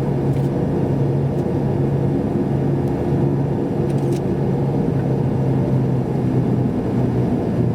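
Steady engine and tyre drone inside a car's cabin while driving, a low hum with a few faint ticks.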